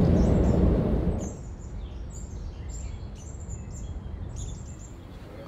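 Steady road noise of a moving car heard from inside the cabin, cut off about a second in; then small birds chirping and calling.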